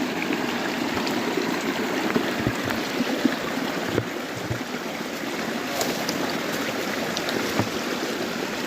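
Forest stream flowing: a steady rush of running water, with a few small sharp ticks or splashes over it.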